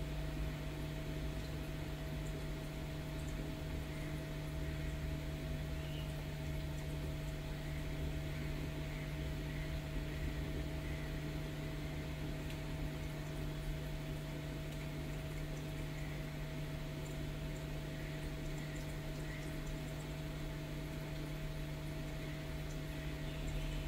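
Steady low hum over an even hiss, a constant room background with no distinct event.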